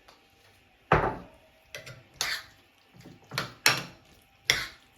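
About six sharp, irregularly spaced knocks and clinks of kitchen dishes and utensils, as more tomato sauce goes into the chakalaka.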